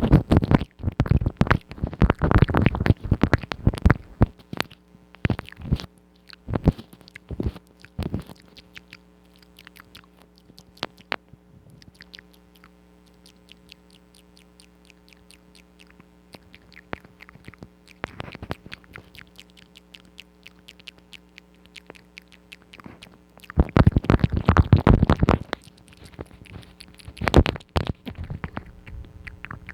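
ASMR mouth sounds close to the microphone: rapid wet clicks and smacks in dense flurries during the first few seconds and again near the end, with scattered clicks between. A steady low electrical hum runs underneath.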